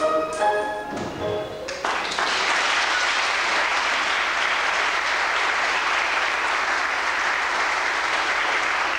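Recorded backing music ends on its last notes about two seconds in, then steady audience applause follows.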